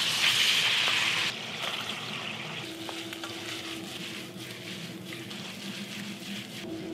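Food sizzling and frying in a hot pan. It is loud for about the first second, then drops to a quieter sizzle with scattered small crackles.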